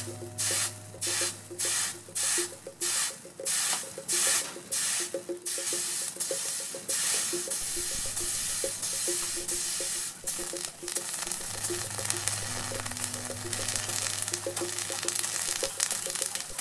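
Water dripping onto a hotplate as it heats up, each drop sizzling as it lands, about twice a second for the first six seconds or so, after which the sizzles run together into a continuous hiss. Quiet background music plays underneath.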